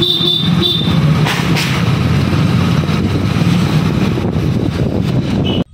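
Motorcycle engine running steadily with wind and road noise on the microphone while riding, with a brief high-pitched tone at the start. The sound cuts off suddenly near the end.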